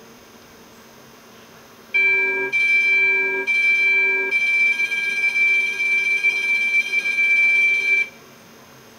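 Electronic vehicle horn: three short blasts, then held for about four seconds before cutting off. It has a high, piercing main tone with a lower note under it.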